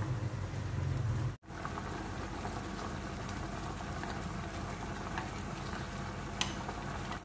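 Char siu pork pieces bubbling and sizzling in a thick, sugary sauce reducing in a frying pan, with small clicks and pops from the bubbles. A low hum sounds in the first second and a half, then stops abruptly at a cut.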